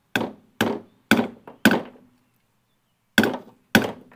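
Hammer blows on a seal installer tool, driving the outer oil seal into the bearing carrier of a 2007 Mercury Optimax 225 lower unit. Four sharp, ringing strikes about half a second apart, a pause, then two more near the end.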